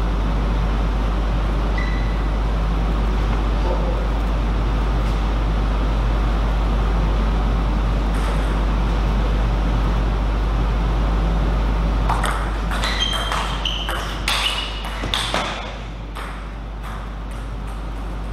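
Table tennis rally: the ball clicking sharply off the bats and the table, about a dozen quick hits starting about twelve seconds in and stopping some three and a half seconds later. Under it, a steady low hum.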